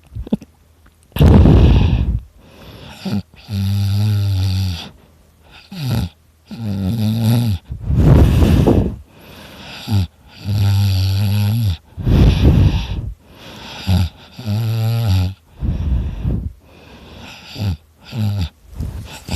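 A man snoring loudly in deep sleep. A rasping rush of breath alternates with a low, buzzing snore, about every two seconds.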